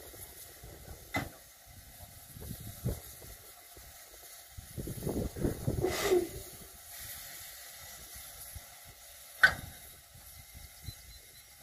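Harz narrow-gauge steam tank locomotive standing at the platform, letting off a rush of steam about five to six seconds in that ends in a brief hiss. Two sharp clicks, about a second in and near the end, the second the loudest sound.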